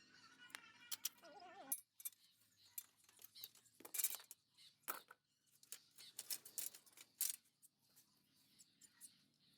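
Irregular metallic clicks, clinks and short scrapes of hand tools and small parts being handled, loudest about four seconds in.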